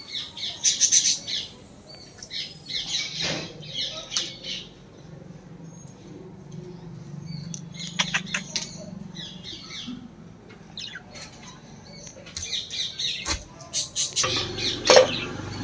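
Pet budgerigars chirping and squawking in short bursts, with a few sharp knocks of a large knife chopping into a green tender coconut.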